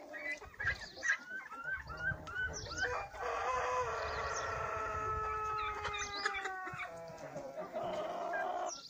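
Chickens calling in short chirps, then a rooster crowing one long, drawn-out crow of about four seconds whose pitch drops slightly as it ends.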